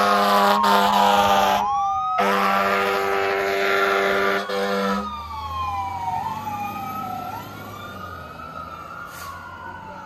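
Fire engine's air horn blasting over its electronic siren, with a brief break just under two seconds in. The horn stops about five seconds in. The siren keeps wailing up and down over the truck's engine, growing fainter as the truck pulls away.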